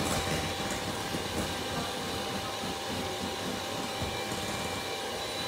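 Electric hand mixer running steadily, its beaters whirring through eggs and sugar in a glass bowl, whipping them until thick and pale for pukis batter.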